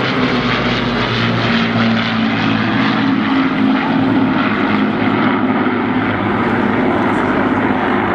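Avro Lancaster bomber and two escorting fighters passing in formation, their Rolls-Royce Merlin piston engines making a loud, steady drone with several engine notes sounding together.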